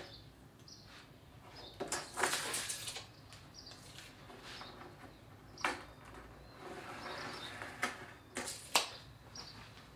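Workshop handling noises: a scrape about two seconds in, then scattered sharp clicks and knocks as OSB boards and hand tools are handled at a sawhorse bench.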